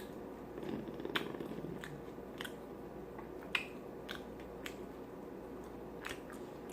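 Close-miked mouth sounds of someone eating: chewing with scattered sharp wet smacking clicks at an irregular pace.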